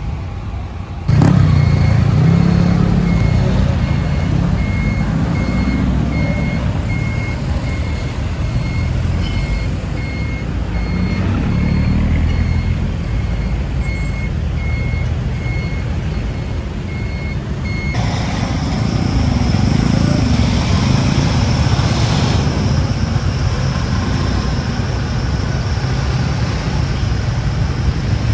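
A heavy vehicle's reversing alarm beeps in a steady, even run over the low rumble of its diesel engine. The beeping cuts off suddenly about two-thirds of the way through, and the engine keeps running.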